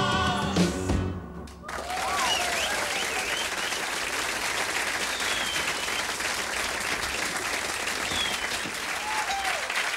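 The band's final sustained chord ends about a second in. After a brief dip, an audience breaks into steady applause with some cheering.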